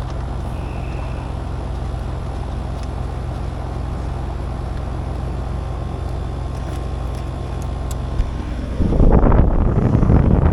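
Air-conditioning equipment running with a steady low electrical hum and a faint steady whine. About nine seconds in, a louder irregular rumble breaks in over it.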